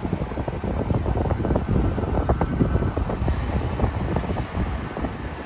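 Wind buffeting the microphone: an irregular, gusty low rumble with no steady tone.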